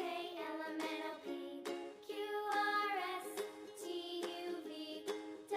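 Light background music for children with soft plucked notes and held tones, no voice.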